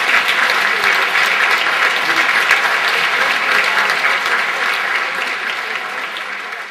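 Concert audience applauding, a dense run of many hands clapping that grows quieter near the end.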